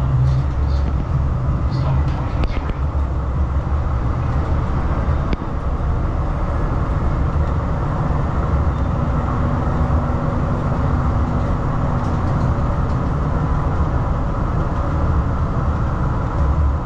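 Cabin noise of a tram in motion: a steady low rumble of the wheels on the rails and the running gear, with a faint steady hum between about nine and twelve seconds in.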